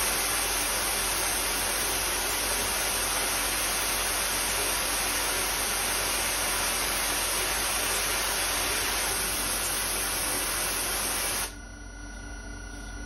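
Steady, even hiss of an air blast from the mill's nozzle onto the spinning nylon stock while it is being bored. The hiss drops away sharply near the end, leaving a fainter background.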